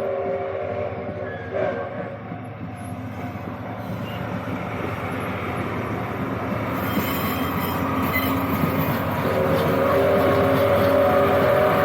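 A train approaching on the line, its rumble growing steadily louder, with a steady droning tone that comes in strongly about nine seconds in.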